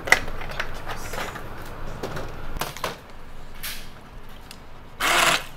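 Kitchen handling noises: a sharp clack just after the start, then a few lighter knocks. Near the end a stick (immersion) blender whirs on briefly, puréeing softened boiled garlic in a plastic tub.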